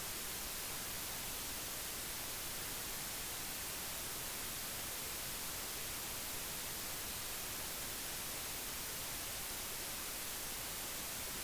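Steady hiss like static, even throughout and with no other sound in it, cutting off suddenly at the end.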